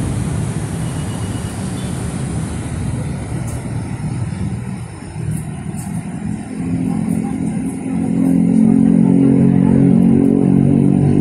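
Motor vehicle traffic close by: a rumbling roadside noise, then about halfway through a nearby engine's steady low hum comes in and grows louder.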